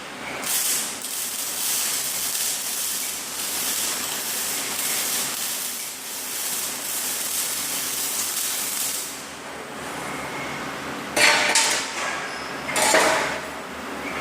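TIG welding arc hissing steadily for about nine seconds, then stopping. Two loud metallic clatters follow near the end.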